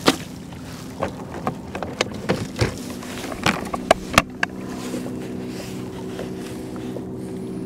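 Scattered knocks and clicks of plastic gear handled on a kayak as a tautog is laid on a plastic fish measuring board, loudest about four seconds in. From about three and a half seconds in a steady low hum sets in and holds.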